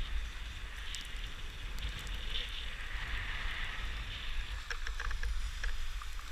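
Skis sliding downhill over packed snow, a steady hiss, over a low rumble of wind on the microphone. A few light clicks come near the end.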